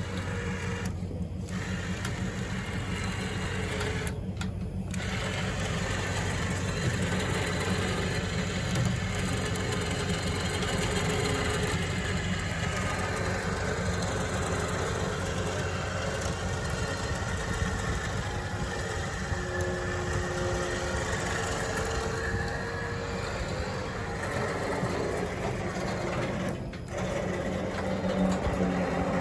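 Electric winch on a car-hauler trailer running steadily under load as it pulls a car up the ramps, over a low steady hum. The winch's whir cuts out briefly about one and four seconds in and again near the end.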